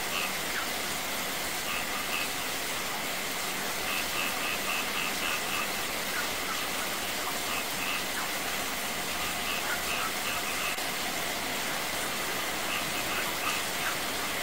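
Steady rain, splashing on wet concrete, mixed with a thin stream of water pouring from above and a small garden cascade running over rocks. Runs of short, high chirps come every second or two over the water sound.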